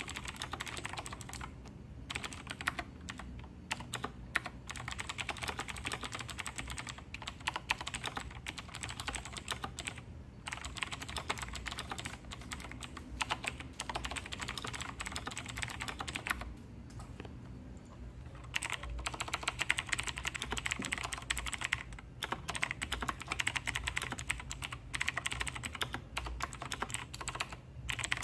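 Fast typing on a Razer BlackWidow Tournament Edition Chroma V2 mechanical keyboard with clicky Razer Green switches: dense runs of sharp key clicks, broken by short pauses, the longest about two-thirds of the way through.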